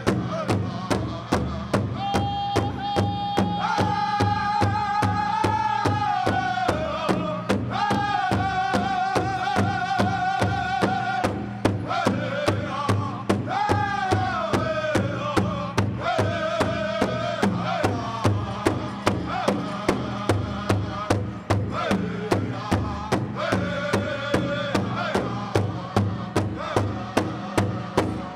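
Pow wow drum group: a big drum struck in a steady beat, a little over two strokes a second, under several voices singing high held phrases that slide downward at their ends.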